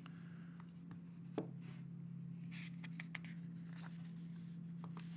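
Quiet room tone with a steady low hum, and a few faint clicks and short rustles, the sharpest a tap about one and a half seconds in.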